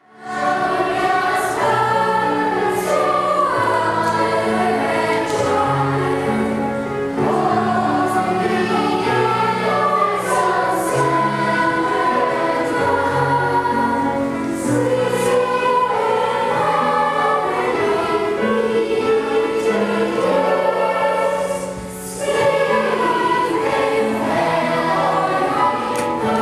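A school choir of children and adults singing a Christmas carol, with long held low notes of an accompaniment beneath the voices.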